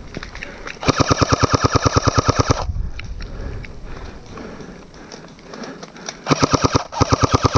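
Airsoft rifle firing two full-auto bursts of rapid, evenly spaced shots. The first burst lasts almost two seconds and starts about a second in. The second starts near the end.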